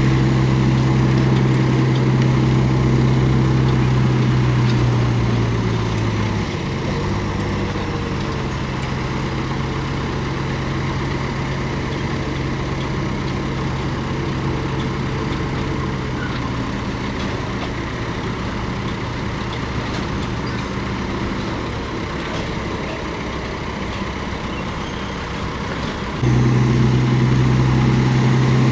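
Komatsu D31P bulldozer's diesel engine running steadily. Its pitch and level drop around six seconds in, then come back up abruptly near the end.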